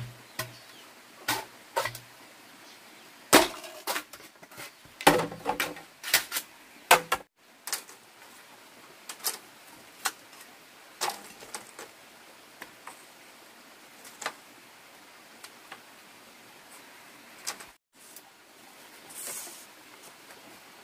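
Green bamboo being struck and split with a machete: sharp knocks and cracks, a dense run of blows in the first third, then occasional lighter clicks and taps as the pieces are handled. A short rustle near the end.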